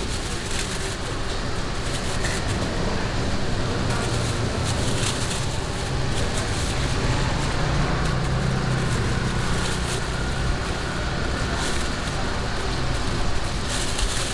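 Steady street noise of passing traffic and distant voices, with plastic bags rustling now and then.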